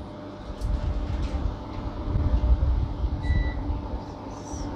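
Low, steady rumble of room noise with a faint hum, and a short high beep about three seconds in.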